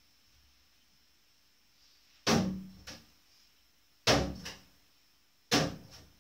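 Three sharp knocks with short fading tails, roughly every one and a half to two seconds, each followed by a lighter tap. These are small metal spice tins being taken from and set back onto the range hood's spice rack.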